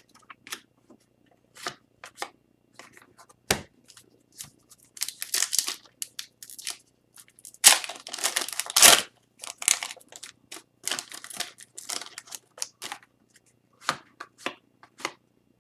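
Upper Deck hockey trading cards and their pack wrappers being handled: scattered flicks and rustles, with a louder, denser rustle around eight to nine seconds in.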